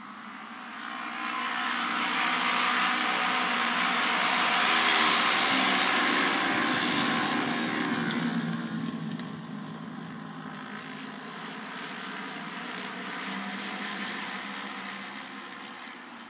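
A pack of Japanese auto race motorcycles running a trial lap of the oval: the engines build to their loudest about five seconds in, drop in pitch as they pass, and fade, with a smaller rise near the end as they come round again.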